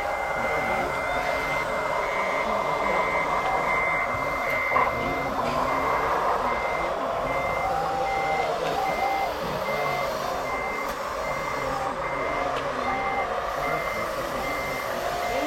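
Reversing beeper of a radio-controlled truck's sound module, beeping steadily at about two beeps a second.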